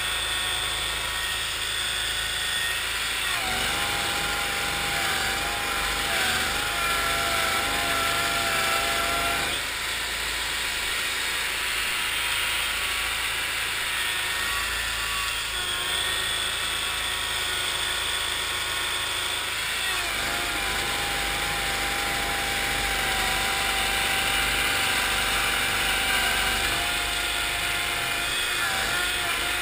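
Engine of a 1974 Cushman Trackster tracked marsh vehicle running while it is driven, its pitch stepping up and down several times as the throttle changes.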